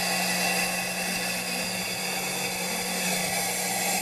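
Beam-model ultrasonic seamer running as it travels along the overlapped backing, chain-and-sprocket driven: a steady machine hum with a constant low drone and a thin high whine above it.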